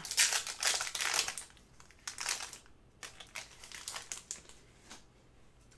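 Foil trading-card pack wrapper crinkling as a pack is handled and opened. It is heaviest in the first second and a half, then comes in a few shorter bursts that thin out.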